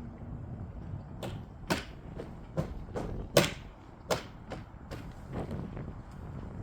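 A run of about eight sharp plastic clicks and knocks over some four seconds as the shark's soft, flexible plastic shell panels are pressed and snapped together. A low wind rumble runs underneath.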